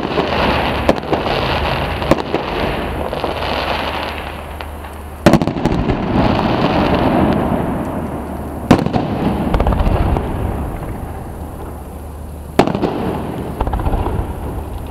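Fireworks going off: several loud bangs of bursting shells a few seconds apart over a continuous crackle of sparks, the crackle dying down toward the end.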